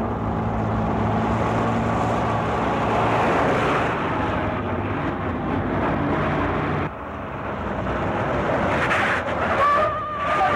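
Heavy truck diesel engines running hard as a Scania 142 and an Iveco Turbostar race side by side. Near the end a truck horn blares with a steady high tone.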